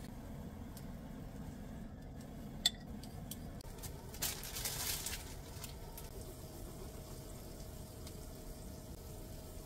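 Quiet kitchen sounds over a faint steady sizzle from a hot pan: a sharp tap about two and a half seconds in, then a brief rustle of a plastic bread bag around four to five seconds in, the loudest sound here.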